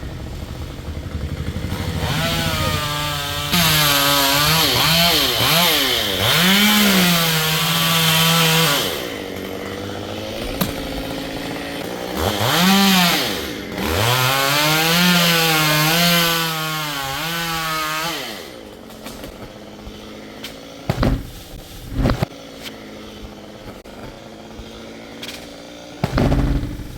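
Two-stroke chainsaw revving and cutting wood in two long runs, its engine pitch repeatedly rising and falling. It then drops back, and a few short sharp knocks follow near the end.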